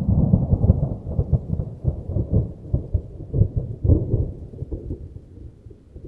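A thunder peal: it breaks in suddenly, rolls on with a string of loud crackles over the next few seconds, and slowly dies away in a low rumble.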